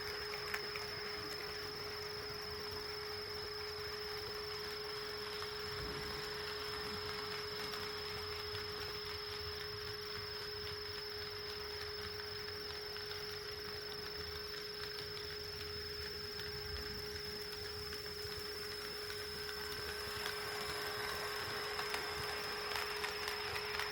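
HO scale model train running on the track: a light rolling rattle with faint clicks, over a steady high whine, getting louder near the end.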